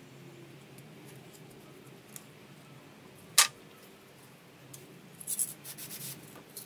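Hand-tool work on a spray-paint painting: light scratching and small ticks. One sharp click comes a little over three seconds in, then a quick flurry of crackling ticks near the end.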